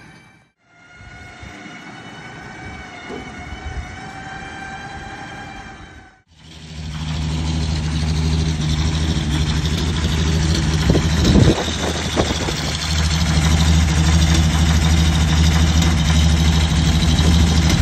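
A winch whines steadily with a slightly wavering pitch, hauling the Bedford Green Goddess fire engine up the low loader's ramp. After a cut about six seconds in, the Green Goddess's six-cylinder petrol engine runs steadily with a deep, much louder hum.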